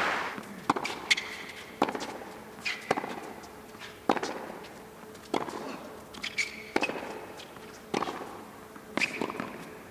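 Tennis rally on a hard court: the ball struck by rackets and bouncing, a sharp pop roughly once a second, with short high shoe squeaks between some of the hits.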